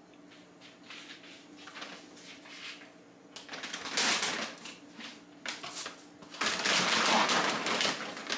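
Crinkly packaging being handled off to the side: rustling and crackling that comes in bursts, louder about four seconds in and again in a longer stretch from about six and a half seconds.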